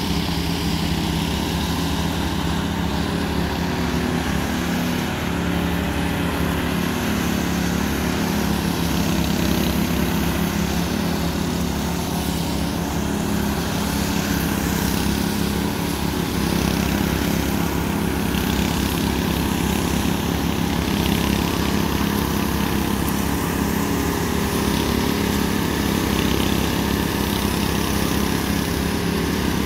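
Several walk-behind concrete power trowels ('helicopters') running steadily as their small petrol engines drive the rotating blades over a fresh concrete slab, floating and finishing the surface.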